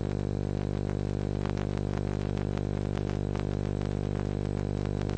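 Steady electrical hum with a stack of even overtones, unchanging throughout, and nothing else clearly heard.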